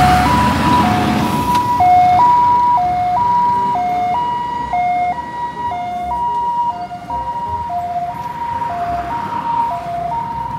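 Ambulance siren sounding a two-tone hi-lo, switching evenly between a higher and a lower note about every two-thirds of a second, over the noise of passing road traffic, which is loudest in the first couple of seconds.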